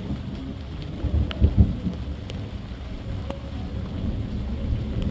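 Thunder rumbling, loudest about a second and a half in, over steady falling rain with a few sharp drip ticks.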